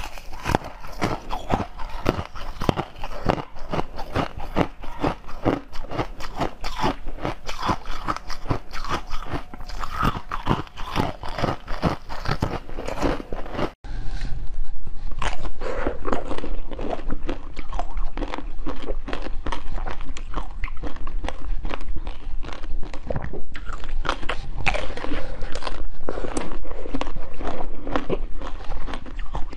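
Close-miked ASMR eating: biting and chewing, a dense run of crisp, wet crunching clicks. About halfway through, an edit switches to louder bites into a hand-shaped sweet.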